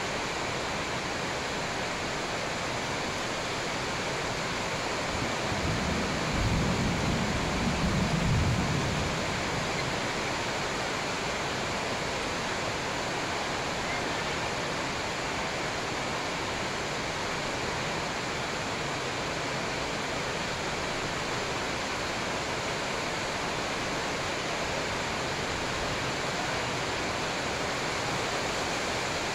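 Steady, even rushing noise with no distinct hits or voices, and a low rumble that swells for a few seconds about six seconds in.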